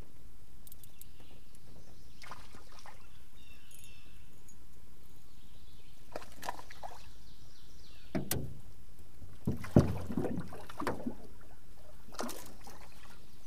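Light knocks and clunks of rod-and-reel handling in an aluminium jon boat while a fish is reeled in. They come scattered, with a cluster about eight to eleven seconds in, the loudest near ten seconds, over a steady low hiss.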